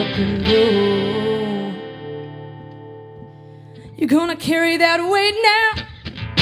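Live acoustic band of acoustic guitars and bass guitar with a lead singer. A strummed chord rings out and fades under a held sung note, then about four seconds in the singer carries a short phrase with vibrato nearly alone, and the band strums back in at the very end.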